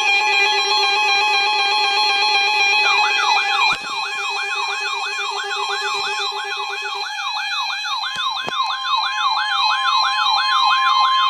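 Layered electronic alert tones: several steady and stepping tones, joined about three seconds in by a fast, repeating electronic siren sweep at roughly two to three cycles a second, with a steady tone coming in near the end.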